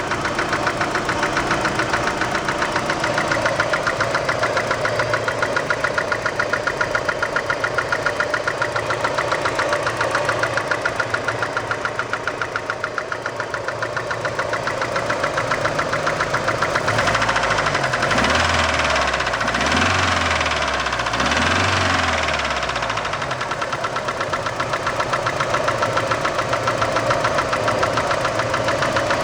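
Opel Frontera A's C20NE 2.0-litre four-cylinder petrol engine running with a steady, rapid rhythmic knock from the engine. The knock persists even after the hydraulic lifters were reinstalled, so the owner no longer takes them for the cause. About two-thirds of the way through, the engine is briefly revved three times in quick succession.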